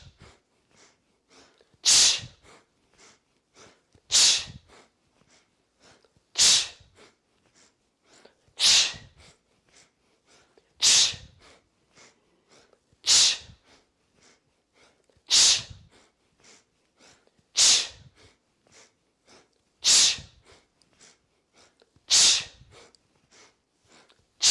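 A person's sharp, forceful breath exhales, about ten of them in a steady rhythm roughly every two seconds, as part of a rhythmic yogic breathing exercise.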